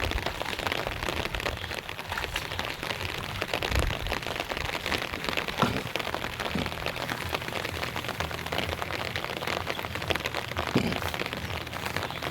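Steady rain falling, a dense continuous patter, with a few louder knocks standing out.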